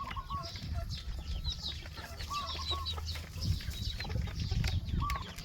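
Chickens clucking in short, repeated calls, with fainter high chirps over a low background rumble.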